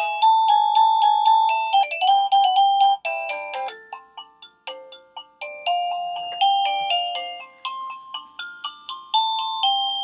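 AVANTEK CB-11 wireless doorbell receiver playing its built-in chime melodies, a tune of quick, bright electronic notes. It changes to a different melody about three seconds in as the melodies are clicked through.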